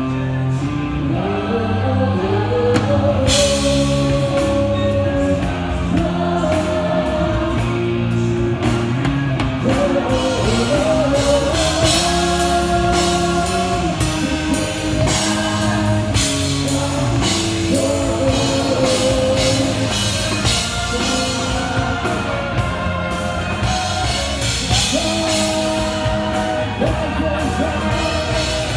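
A rock song with a sung lead melody over drums, bass and guitar, played loud through a concert sound system. The drums and cymbals come in fully about three seconds in.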